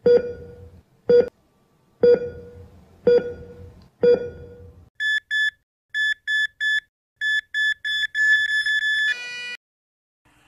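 Heart-monitor sound effect: five lower pings about a second apart, then higher beeps that come faster and faster until they run together into a steady flatline tone. The tone drops to a short lower chord and cuts off about nine and a half seconds in. The flatline signals the heart stopping.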